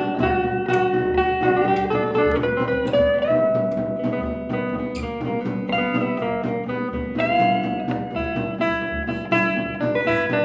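Instrumental improvisation led by guitar: plucked notes over a held accompaniment, with a few long notes that slide up in pitch.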